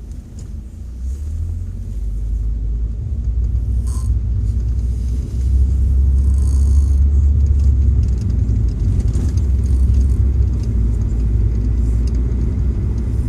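Low, steady road rumble of a moving car heard from inside the cabin, growing louder over the first few seconds and stepping up about five seconds in.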